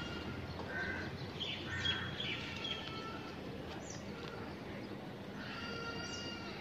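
Birds chirping intermittently, with a few short calls and quick high downward chirps, over steady outdoor background noise.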